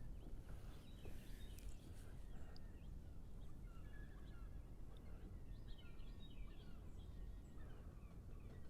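Faint outdoor ambience: a steady low rumble with birds calling in short chirps, busiest about six seconds in.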